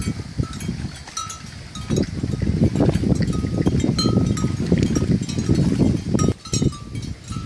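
Neck bells on grazing water buffalo clanking at irregular intervals, each a short ring, over a continuous low noise that gets louder about two seconds in.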